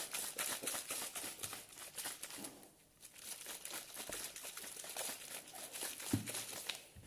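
A closed container holding slime mixture being shaken hard: rapid, rhythmic crinkly strokes that pause briefly about three seconds in, then go on more softly.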